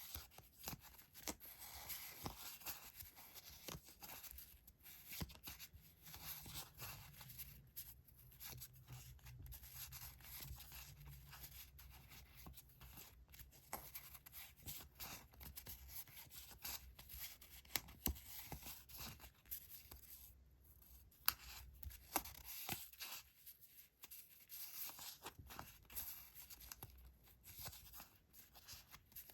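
Paper and stationery being handled: soft rustling and crinkling with many small taps and clicks, and a faint low hum under it for much of the middle.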